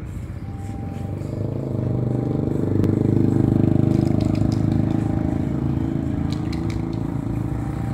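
A motor vehicle engine running close by, swelling over the first three seconds, then holding steady. A few light clicks come near the end.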